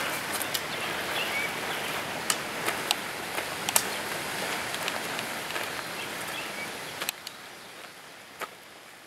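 Steady rushing outdoor noise with scattered sharp clicks, fading out over the last couple of seconds.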